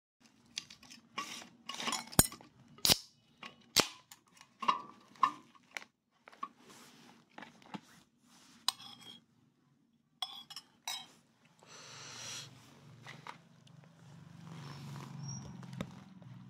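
A beer can's pull tab snaps open among a run of sharp clicks and knocks, the loudest about two to four seconds in. After that come sparser clinks of dishes and food containers and soft handling noise.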